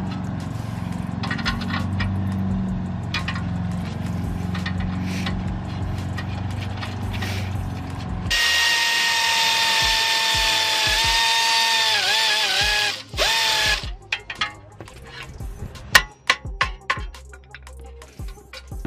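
Cordless impact wrench spinning down the nut on the outer tie rod end. It runs with a steady whine for about five seconds, starting about eight seconds in, and its pitch dips and wobbles near the end as the nut tightens. Scattered clicks and knocks of tool handling follow.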